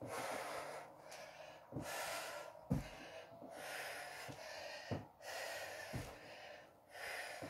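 A woman breathing hard from exercise, loud in-and-out breaths of about a second each, with a few dull thuds of her trainers landing on a carpeted floor as she steps through lunges.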